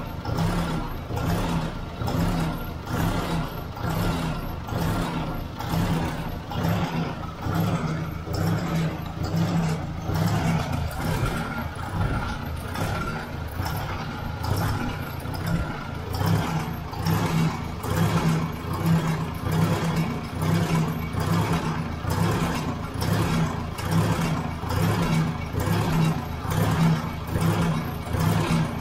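Ford 600 tractor's four-cylinder gasoline engine idling steadily with a regular pulsing beat, running on a newly fitted aftermarket carburetor.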